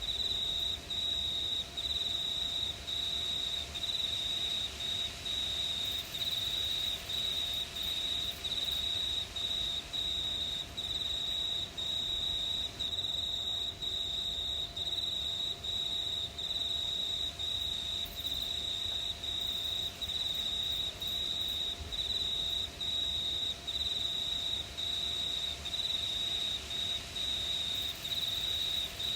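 Crickets chirping in a steady, high-pitched trill, broken by brief gaps roughly once a second.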